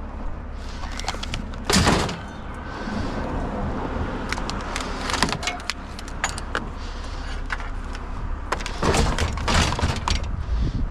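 Knocks, clanks and rattles as a heavy metal fan is handled and loaded as scrap. The loudest knock is about two seconds in, with a cluster of clatters near the end, all over a steady low rumble.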